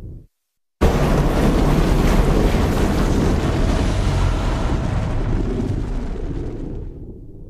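Boat running over open water, with wind buffeting the microphone and water rushing past. It starts abruptly about a second in after a short gap and fades away near the end.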